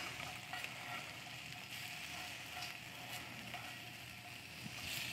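Food sizzling in a frying pan as it is stirred, a steady hiss with a few faint clicks.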